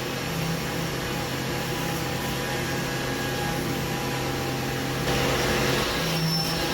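A milling machine runs steadily while machining aluminum, with a constant low hum under a broad hiss. About five seconds in the hiss grows louder and brighter for about a second, and the hum's pitch shifts.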